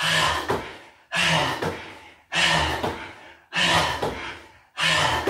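A person's forceful exhale with a short grunt on each rep of hands-off push-ups, five times, about one every 1.2 seconds, each starting sharply and fading away.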